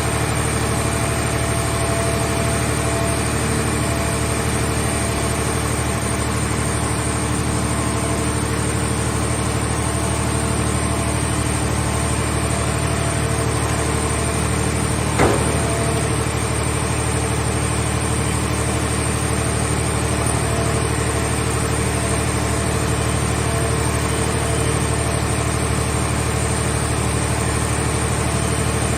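Car scrap baler running with a steady, low machine drone. There is a single sharp clank about halfway through.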